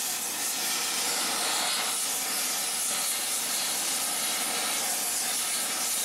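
Rosebud torch tip burning oxyhydrogen (HHO) gas turned wide open: a steady, loud hiss of the flame.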